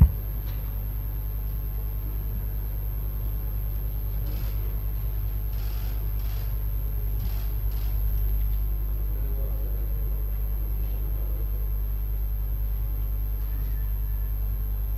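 Steady low rumble of room hum, with a sharp click right at the start and faint indistinct noise in the middle.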